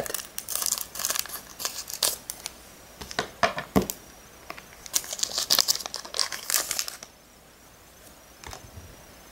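Booster pack wrapper crinkling as it is cut open with scissors and handled, with sharp rustles and tearing sounds; the noise dies down about seven seconds in, leaving a few faint card clicks.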